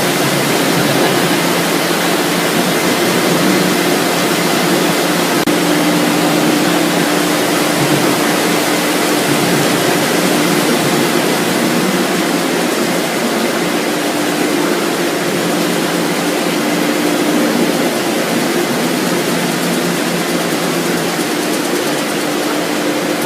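French fries production-line machinery running steadily: a dense rushing noise with a constant hum and a faint high whine.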